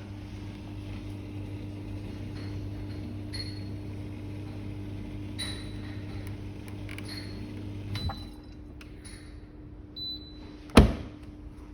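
Mini tabletop dishwasher running with a steady motor hum and scattered faint ticks, cutting off with a click about eight seconds in. A short high tone follows, then a sharp knock near the end, the loudest sound.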